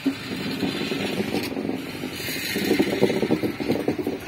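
Indian Railways passenger sleeper coaches rolling past at slow speed, their wheels and bogies clattering and clicking on the track in a dense rattle that grows loudest just past the middle as a coach end goes by.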